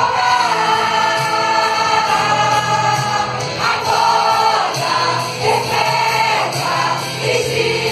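Church choir of women and children singing a worship hymn together in long held phrases.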